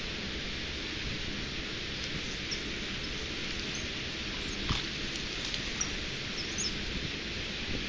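Steady rushing of water spilling from a nearby dam, with a few short high bird chirps in the second half and one sharp click a little past halfway.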